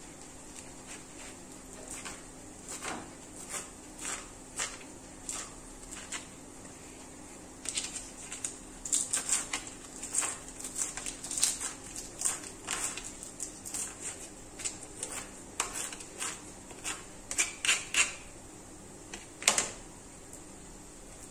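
Small kitchen knife tapping on a plastic cutting board as sage and bay leaves are chopped into small pieces, in irregular taps that come quicker and denser in the middle and again near the end. A single sharper knock comes shortly before the end, over a steady faint hum.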